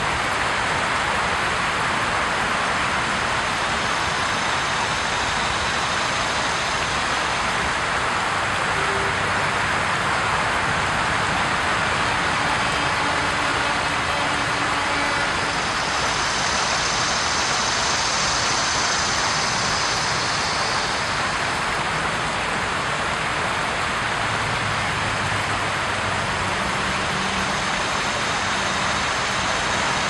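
River water flowing and rippling in a steady rushing noise.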